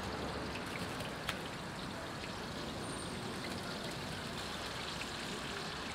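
Sliced onions sizzling in hot oil in a large cooking pot, a steady hiss, with one sharp click about a second in.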